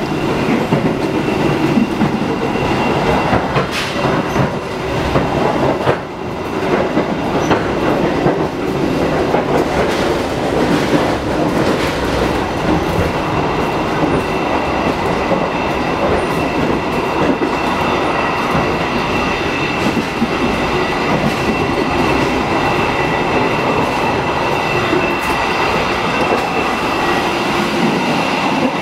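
Running noise inside a moving passenger coach, a 2016 INKA executive car: a steady rumble of the wheels on the rails, with scattered clicks from the track.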